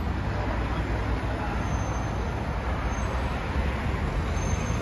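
Steady city street traffic: the low rumble of passing cars' engines and tyres.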